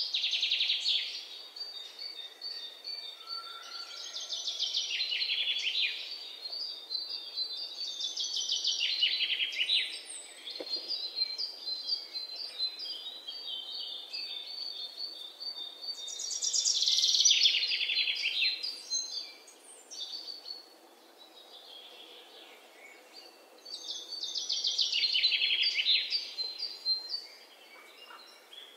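Songbirds singing: several bouts of fast trills that fall in pitch, a few seconds apart, with a thin high steady note between them.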